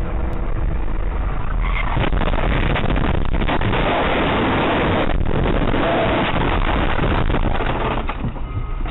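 Car crash heard from inside the crashing car: road noise, then about two seconds in a hard impact followed by some six seconds of dense grinding and clattering as the car scrapes along in a shower of sparks and tumbles. The noise dies away near the end.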